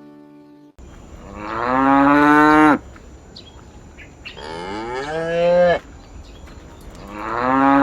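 Cow mooing three times, each moo about a second and a half long and rising slightly in pitch.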